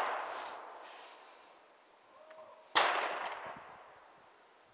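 Rifle gunshots: the echo of a loud shot fades away in the first second, then about three seconds in comes a single quieter, sharp gunshot that rings out and decays over about a second.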